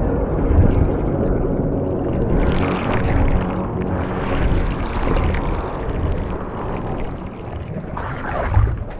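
Deep rumbling ambient drone with steady low tones under it, and rushes of noise that swell up twice in the first half. A low thump comes near the end.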